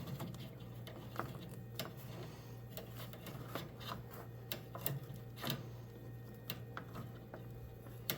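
Scattered light clicks and taps from hands working a fuel line and its clamps onto an inline fuel filter, over a low steady hum.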